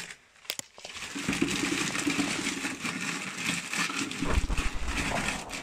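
Loose wood shavings (hamster bedding) pouring from a cardboard carton into a plastic bucket, a continuous dry rustle, with a few low thumps a little after four seconds in.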